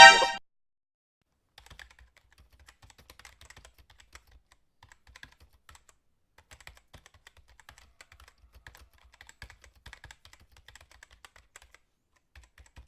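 Typing on a computer keyboard: a long run of quick, irregular, faint key clicks for about ten seconds. Right at the start, a brief loud pitched sound cuts off.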